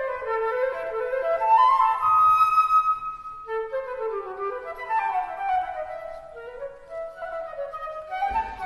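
Background music: a flute playing a flowing melody.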